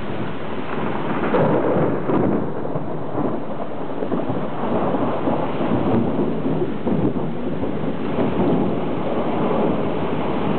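Thunder rolling in a long, low rumble that swells about a second and a half in and keeps going, over a steady hiss of rain.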